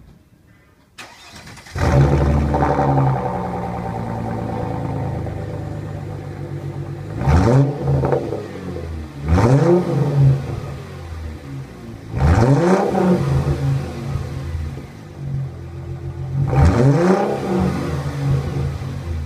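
Supercharged 3.2-litre V6 of a Mercedes Vito, heard through a custom stainless-steel exhaust with quad tips. It starts up about two seconds in and settles to a steady fast idle, then is revved four times, each rev rising quickly in pitch and falling back to idle.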